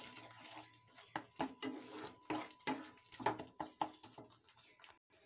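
Wooden spatula stirring and scraping a thick, grainy mango, milk and paneer kalakand mixture in a non-stick kadhai, making a run of irregular soft scrapes and knocks against the pan. The mixture is starting to thicken on low heat.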